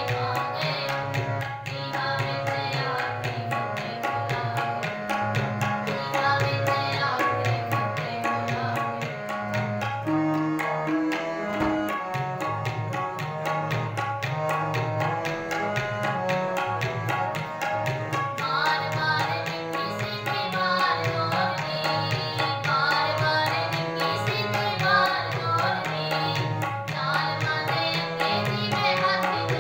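Gurbani kirtan: Yamuna harmoniums playing a melody over a steady tabla rhythm, with singing in the second half.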